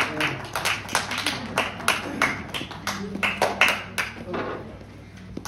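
A small group of people clapping their hands unevenly, with voices mixed in. The clapping dies away about four seconds in.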